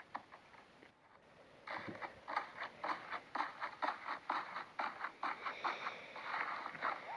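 Slime being squeezed and worked by hand: a quick run of small crackling clicks and squishes, several a second, starting about a second and a half in.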